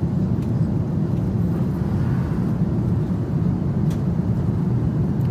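Steady low drone of an Airbus airliner's cabin in flight, the engine and airflow noise heard from a passenger seat.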